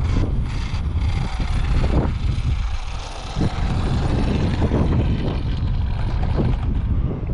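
Strong wind buffeting the microphone: a constant low, rushing rumble.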